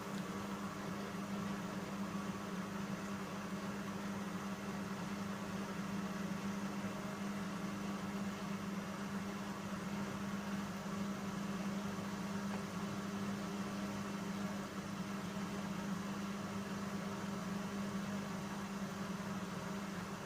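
Bauknecht Super Eco 6413 front-loading washing machine running with a steady motor hum, one low tone held evenly throughout.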